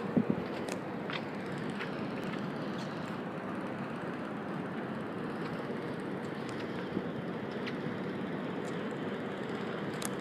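Steady noise of a cruise ship manoeuvring slowly to dock: an even wash of ship machinery and moving air with a faint steady hum. A few handling knocks on the phone right at the start.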